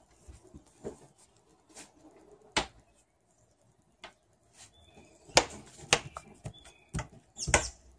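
Hands working on a fibreglass boat hatch while fitting peel-and-stick weather stripping: scattered soft taps and knocks, with several louder thumps in the second half.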